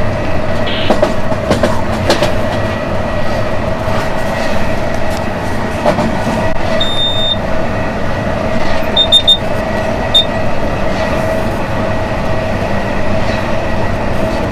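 Cab noise of a KZ8A electric freight locomotive running at speed: a steady drone of running gear and traction equipment with a constant hum and scattered knocks. Short high electronic beeps from the cab equipment sound over it: one longer beep about 7 seconds in, then three quick beeps, then a single one.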